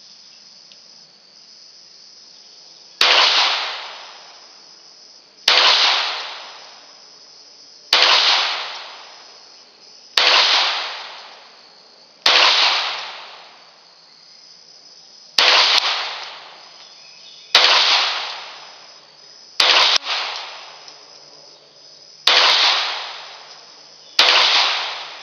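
Ruger Mk III 22/45 .22 pistol with a bull barrel firing ten single shots at a slow, even pace about two seconds apart, each report dying away over a second or so. The pistol feeds and ejects every round without a malfunction. A faint steady insect drone runs underneath.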